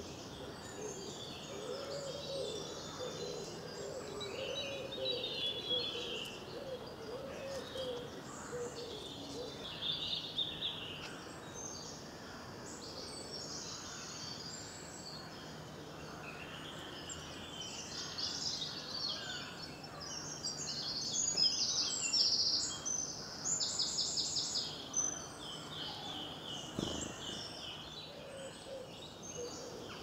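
Woodland birdsong chorus: several small birds singing high, overlapping phrases, busiest and loudest in the second half. A low repeated cooing sounds underneath during roughly the first third.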